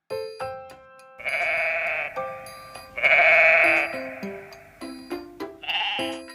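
Sheep bleating: two long bleats, then a shorter one near the end, over light plinking children's music.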